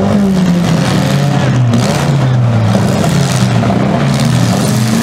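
Engines of small demolition-derby cars running and revving, their pitch slowly rising and falling.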